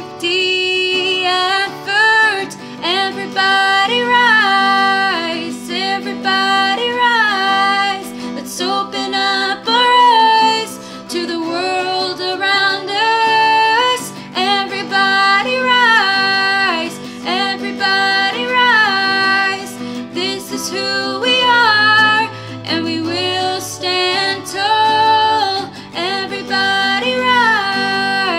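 A song: a woman's singing voice over acoustic guitar accompaniment.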